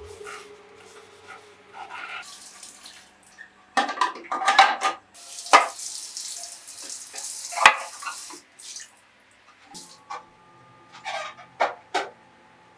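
Kitchen tap running into a sink for a few seconds in the middle, among hard knocks and clatters of dishes or containers being handled.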